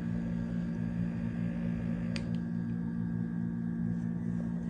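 Electric makeup brush cleaner's small motor running steadily, spinning a freshly washed brush in its glass bowl to spin it dry: a steady hum, with a faint tick about two seconds in.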